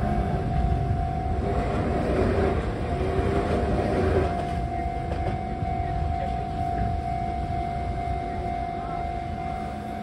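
Japanese railway level-crossing warning bell ringing continuously, over a low rumble of traffic.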